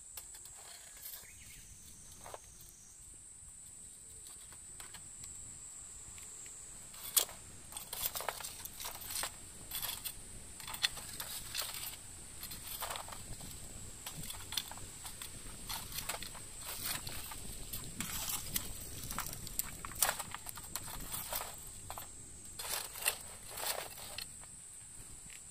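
Steady high-pitched drone of cicadas, with irregular clicks and knocks from about seven seconds in until near the end.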